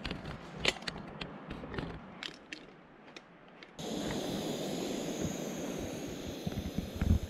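Sharp metal clicks and clinks from a moka pot and a canister gas stove being handled. From about four seconds in comes the steady hiss of the stove's gas burner running under the moka pot.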